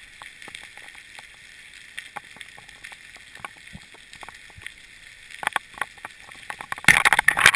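Underwater sound picked up through the housing of a mask-mounted camera: faint hiss with scattered sharp clicks, then a loud crackling, scraping burst about seven seconds in.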